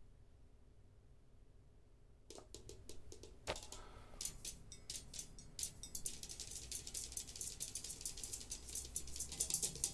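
Near silence at first. About two seconds in, scattered sharp taps start and build into a fast, dense drum rhythm: the opening of a drum-led music track.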